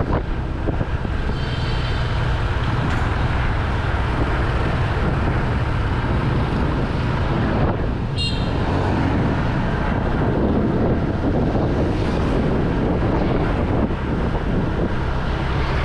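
Honda SH 150 scooter's single-cylinder engine running steadily as it rides along a city street, with wind on the microphone and road noise. A brief high-pitched sound comes about eight seconds in.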